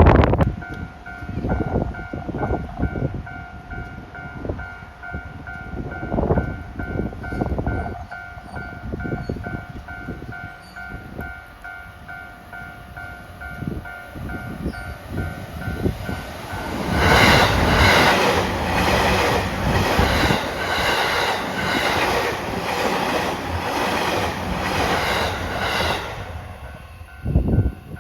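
A Japanese level-crossing warning bell rings in a steady repeating two-tone pattern, with scattered low knocks beneath. About 17 seconds in, an out-of-service electric train passes over the crossing at about 74 km/h for roughly nine seconds: a loud rush with wheels clattering over the rail joints in a regular rhythm, drowning out the bell. The bell is heard again after the train has gone.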